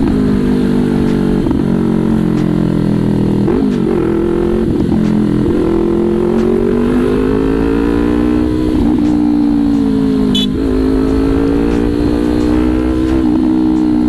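Yamaha YZF-R3's parallel-twin engine running through an SC Project racing exhaust canister while riding at a steady cruise. The engine note drifts slowly up and down with the throttle and dips briefly twice, about a third of the way in and again after ten seconds.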